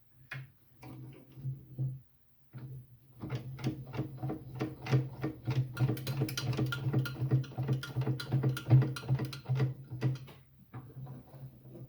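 Drill press being set up: a rapid run of metallic clicking and rattling with a pulsing low buzz, lasting several seconds before it eases off near the end.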